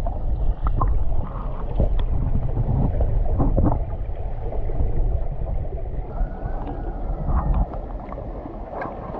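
Muffled underwater sound from a camera submerged in a creek: a dense low rumble of water moving around the camera, with scattered sharp clicks and knocks. The rumble eases near the end.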